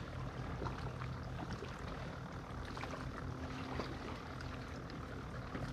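Water lapping against a kayak's plastic hull, with a faint steady low hum and a few light ticks.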